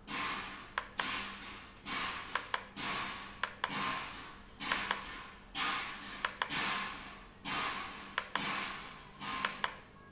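Plastic mode button on a laptop cooling pad's control panel pressed over and over, about once a second, cycling its RGB lighting modes; each press is a sharp click followed by a short hiss.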